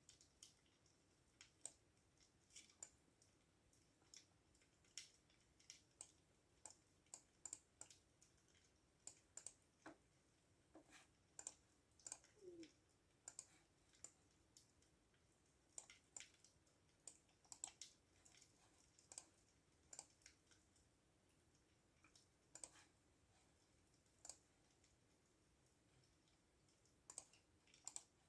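Faint computer keyboard typing: scattered key clicks in short irregular runs, with pauses between them.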